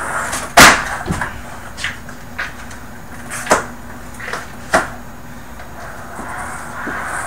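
Skateboard on carpet: a loud clack as the board lands a trick about half a second in, with a lighter knock just after, then a few scattered knocks of the board and two more sharp clacks, at about three and a half and nearly five seconds in.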